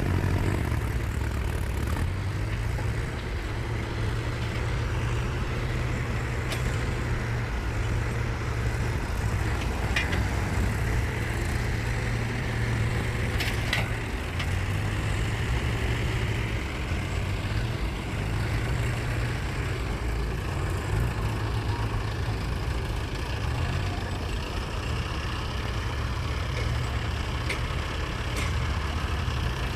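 A heavy vehicle's diesel engine running steadily at a low, slightly pulsing note. A few sharp metallic knocks come at intervals.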